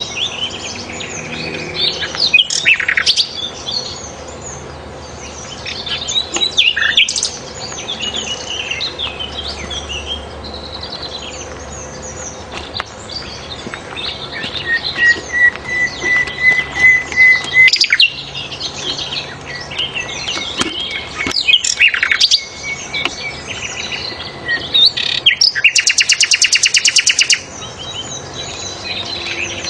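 Songbird sold as sikatan londo (a flycatcher) singing a dense, varied song of quick chirps, trills and whistles. About halfway through it holds a long, steady whistle, and near the end it gives a fast, loud buzzing rattle.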